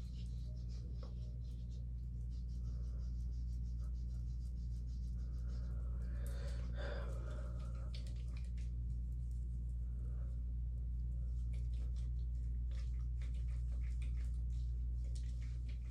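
A steady low hum, with faint small clicks and rustles throughout and a brief louder rustle about six to seven seconds in.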